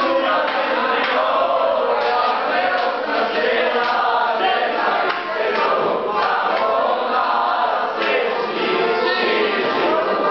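A group of voices singing together, loud and steady throughout.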